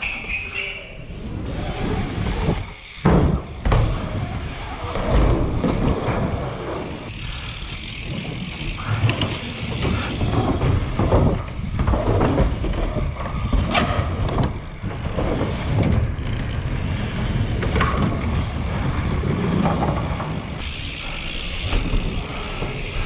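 BMX bike riding a jump line, heard from a helmet-mounted action camera: a steady low rumble of tyres and wind buffeting the microphone, broken by several hard thumps as the bike lands off jumps and rollers.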